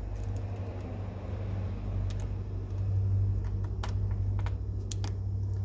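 Several small, sharp clicks of a key and a replacement toolbox lock cylinder being handled and fitted together, over a steady low hum.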